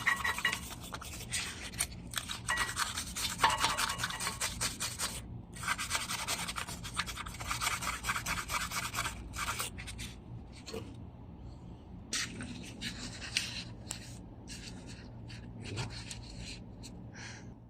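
Brass wire brush scrubbing back and forth on the rear brake caliper bracket's pad track, scouring off old carbon deposits. Rapid, dense strokes for about the first ten seconds, then sparser, scattered strokes.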